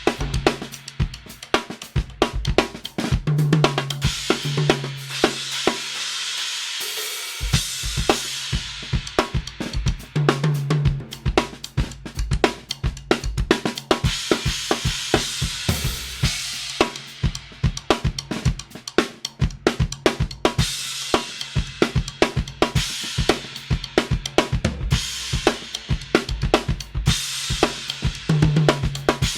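Drum kit groove with kick, snare and hi-hat, with an Istanbul Mehmet X-Ray crash cymbal struck every few seconds and washing out between hits. A steady low bass line runs underneath and drops out briefly about seven seconds in.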